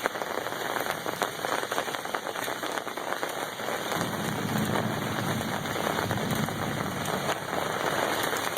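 Torrential thunderstorm rain pouring down, a dense, steady hiss of crackling drops hitting surfaces. A low rumble joins in from about four seconds in and fades out about three seconds later.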